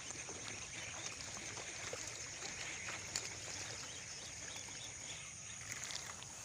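Outdoor ambience: a steady high-pitched insect drone with a few faint scattered ticks and rustles.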